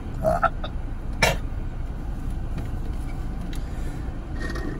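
Car idling, heard from inside the cabin as a steady low rumble, with one sharp click about a second in.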